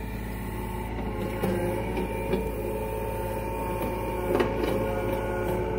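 John Deere 35G compact excavator's diesel engine running under hydraulic load, its hydraulic whine shifting in pitch as the bucket drags soil to backfill a sewer trench. A few short knocks and scrapes from the bucket in the dirt, the loudest about four and a half seconds in.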